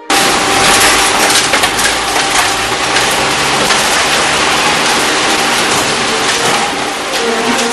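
Mackerel sorting line at work: a dense clatter of fish and machinery over a steady rushing noise.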